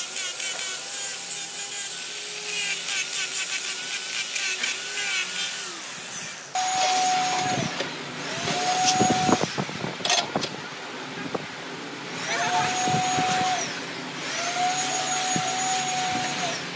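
Woodworking tools at work: a rough, steady noise of a tool on wood for about six seconds. Then a small electric power-tool motor whirs up to speed and runs for a second or two, four times over, with knocks in between.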